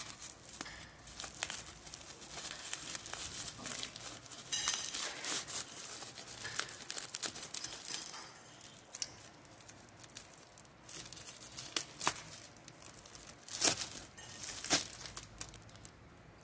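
Plastic packaging crinkling and tearing as a black plastic mailer bag and its taped wrapping are torn open and pulled apart by hand, with many sharp crackles, the loudest a few seconds before the end.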